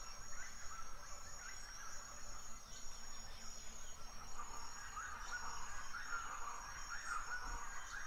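Forest birds singing: many quick wavering chirps, with a high thin note repeated over and over, above a faint low rumble.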